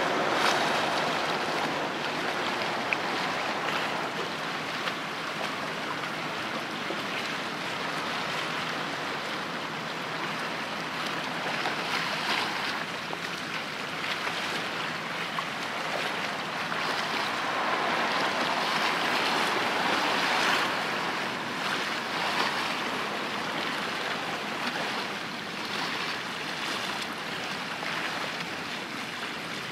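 Rushing of wind and water lapping on the shore, with no clear engine tone, rising and falling and loudest about two-thirds through.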